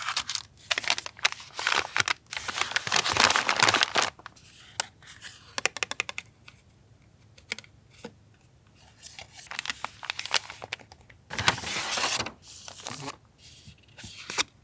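Paper and packaging handled close up: rustling, crinkling and tearing in irregular bursts, with a quick run of small ticks about five and a half seconds in and a quieter stretch in the middle.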